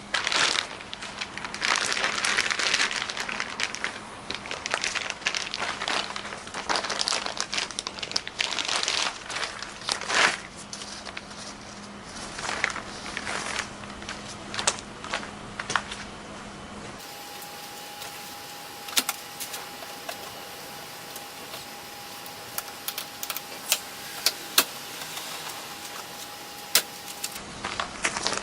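Car cover rustling and crinkling in irregular bursts as it is handled, over a faint steady hum. About two thirds of the way in, this gives way to a quieter stretch with a steady tone and a few scattered clicks. The rustling resumes near the end.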